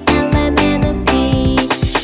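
Children's background music: an instrumental melody over a regular beat.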